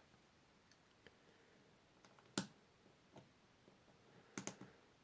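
Sparse small clicks of metal lock parts being handled and fitted together on a reassembled Schlage Everest 29 core: one sharper click about two and a half seconds in and a quick run of three clicks near the end, faint ticks between.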